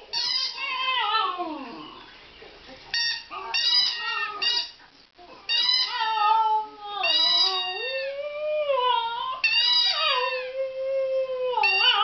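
Border terrier "singing": a string of long, wavering, whining howls that glide up and down in pitch, with a short pause about five seconds in.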